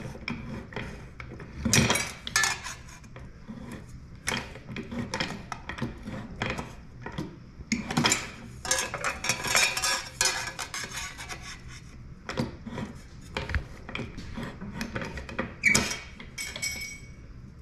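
Bench-mounted hand-lever shear snipping a curve into sheet steel in a series of short, irregular cuts, with metallic clinks and clanks as the plate is turned between bites.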